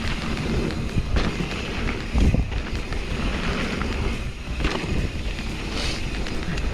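Bolany mountain-bike freehub buzzing as the bike coasts downhill, under wind noise on the microphone and trail rumble, with a few sharp knocks from bumps.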